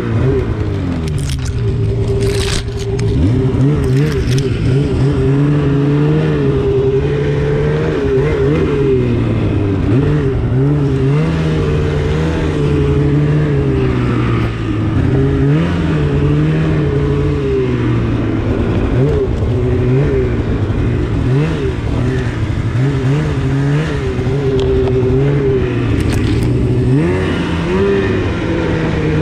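2016 Polaris RMK 800 snowmobile's two-stroke twin, fitted with a Bikeman aftermarket exhaust, running at low trail speed with the throttle worked on and off constantly, so the engine note keeps rising and falling. A few short scrapes come in the first few seconds and again near the end.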